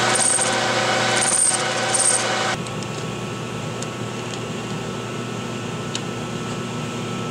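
A 13-inch metal lathe running while a cutting tool trims the end of a chrome-moly tube, with a steady motor and gear hum and a high whine from the cut that comes and goes. About two and a half seconds in it drops suddenly to a quieter steady hum, with a few faint metallic clicks as the tube is handled in the chuck jaws.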